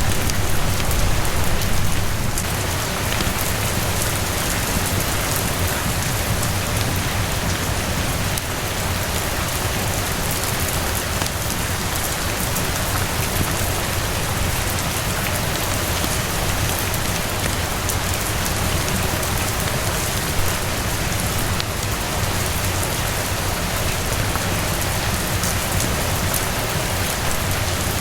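Steady rain falling on a terrace, an even dense hiss with a steady low rumble underneath, scattered with faint small crackles from a wood fire.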